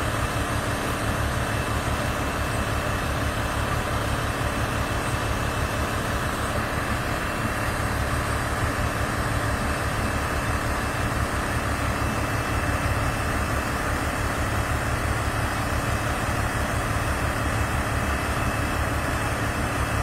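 Rice combine harvester's engine running steadily while it unloads grain through its auger into a truck: an even low throb with a faint steady high whine over it.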